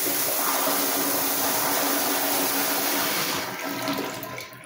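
1970s Kohler Kingston toilet flushing through its push-button flushometer valve: a loud, steady rush of water swirling in the bowl that thins out and fades near the end as the valve closes. The bowl swirls without siphoning.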